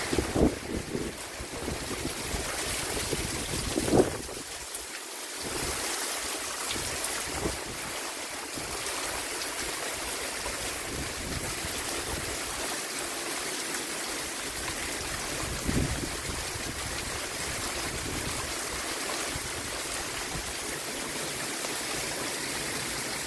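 Heavy hurricane rain pouring down in a dense, steady hiss. Gusts of wind buffet the microphone in a few low thumps, the strongest about four seconds in and another near sixteen seconds.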